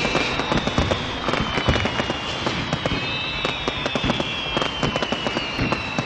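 Orthodox church bells of the Kyiv Pechersk Lavra pealing: a dense run of rapid clapper strikes over high ringing tones.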